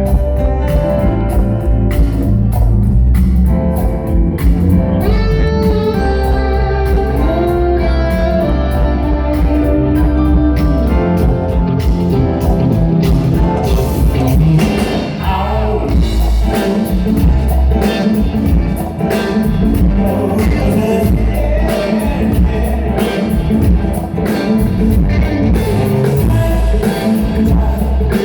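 Live rock band with electric guitar, bass, drums and a singing voice, played loud through a PA system.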